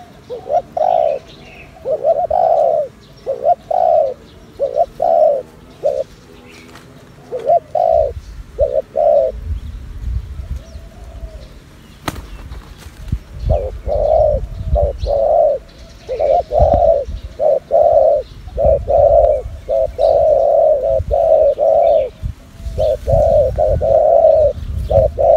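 Spotted dove cooing: phrases of short repeated coo notes, a pause of a few seconds about halfway, then a long quick run of coos. A low rumble sits under the later coos.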